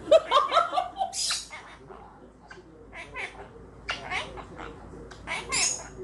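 Quaker parrot chattering and squawking. A quick run of short chirping, bending calls comes first, then a harsh hissy squawk, with scattered short calls and clicks after and another burst of chatter near the end.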